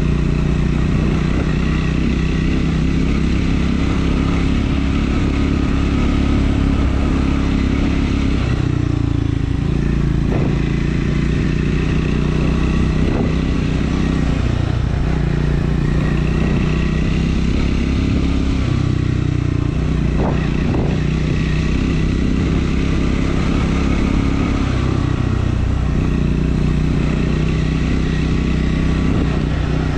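Triumph Scrambler 400 X's single-cylinder engine running under way, its note shifting several times as the throttle and gears change, with a few short knocks.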